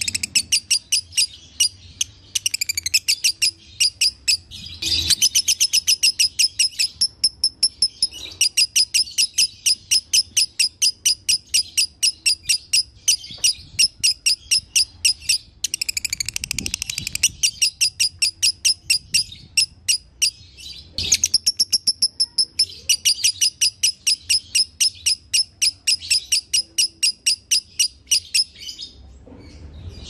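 Lovebird singing 'konslet' style: a long, rapid, high chattering trill of many sharp notes a second, run on for many seconds at a time with only a few brief pauses.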